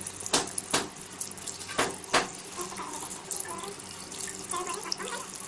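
Water running steadily, with four sharp knocks in the first couple of seconds.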